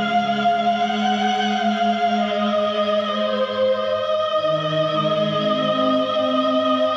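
Roland XPS-10 keyboard playing one of its custom Indian-style tones: a smooth, sustained lead melody with slow vibrato over held low notes that shift a few times.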